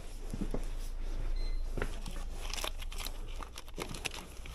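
Plastic snack packets crinkling and rustling as gloved hands rummage through them on a shop shelf, the crackles thickest in the second half, over a steady low rumble.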